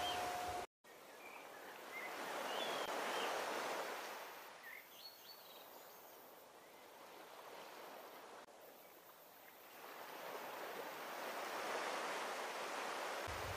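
Surf washing ashore: a rushing noise that swells and fades twice, with a few short bird chirps in the first few seconds. The sound drops out completely for a split second just under a second in.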